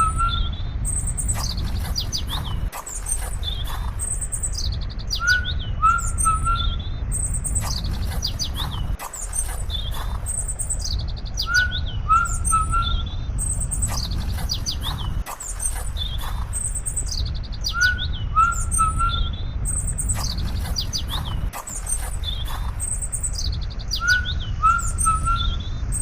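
Birds chirping, with short high twittering calls and a lower three-note call, over a steady low rumble. The same stretch of birdsong repeats exactly about every six seconds, as in a looped nature-sound track.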